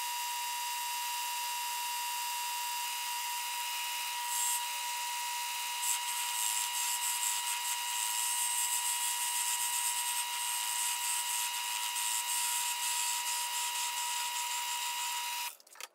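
Wood lathe running with a steady whine while a parting tool cuts into a small spinning wooden blank, adding a scraping hiss that grows rougher from about six seconds in. The sound stops abruptly near the end.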